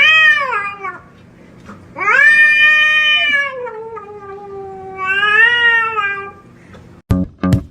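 A cat yowling in long, drawn-out calls: one ends about a second in, and two more follow, each bending down and back up in pitch.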